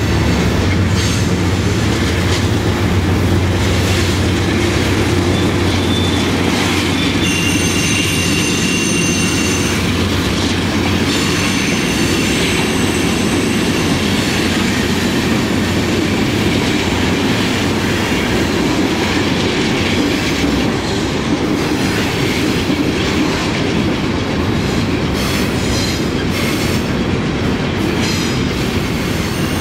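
Freight train hauled by several diesel-electric locomotives rolling past, the engines' deep drone strongest over roughly the first ten seconds, then the freight cars with a steady rail clatter. High-pitched wheel squeal comes in twice in the first half and faintly again near the end.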